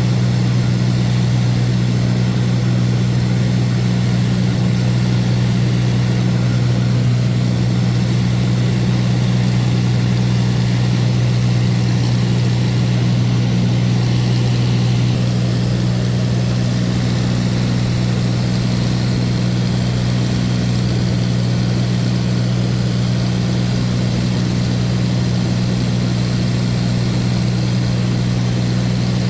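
A light aircraft's engine and propeller droning steadily at cruise, a loud unchanging hum heard inside the cabin.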